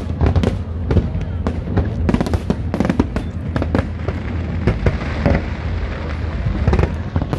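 Aerial fireworks going off in quick succession: many sharp bangs and crackles, several a second, over a steady low rumble.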